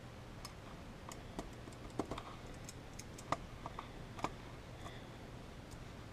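Light, scattered clicks and ticks of a small metal slot car pickup shoe being bent and handled in the fingers, adjusted so it rides flat on the rail instead of on its heel. The sharpest clicks come about two, three and four seconds in.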